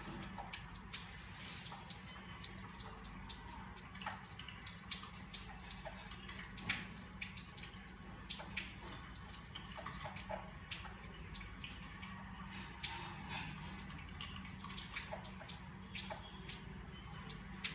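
Crochet hook working yarn: soft, irregular clicks and ticks of the hook and handled yarn, scattered at uneven intervals over a steady low hum.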